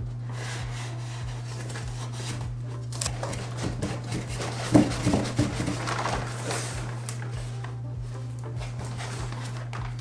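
Cardboard shipping box being handled: flaps and panels scraping, rustling and knocking as they are opened and pulled apart, with the loudest knock about halfway through. A steady low hum runs underneath.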